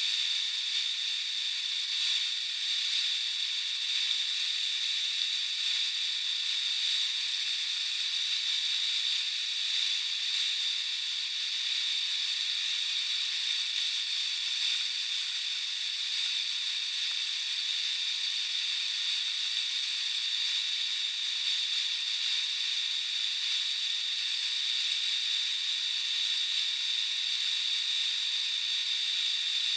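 Metal lathe running while a small part in its chuck is hand-finished with a strip of abrasive held against it. The result is a steady hiss with a high whine that does not change.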